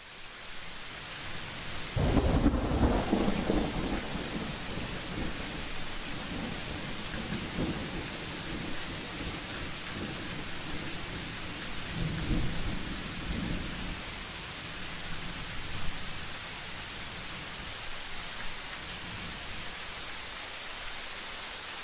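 Steady rain hiss with thunder: a sudden loud rumble about two seconds in that rolls on for a couple of seconds, and fainter rolling rumbles about halfway through.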